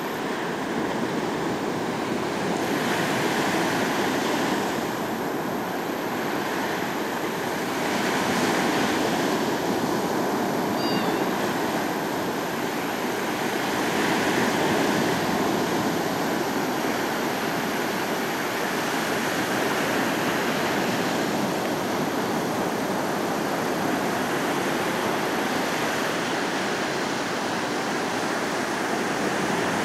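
Ocean surf breaking and washing up the beach: a steady rushing hiss that swells and eases every few seconds.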